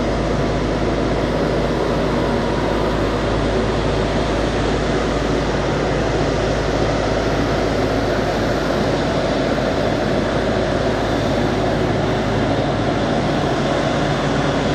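Boeing 777-300's twin jet engines running at taxi idle as the airliner taxis: a steady hiss with a low hum underneath, even in level throughout.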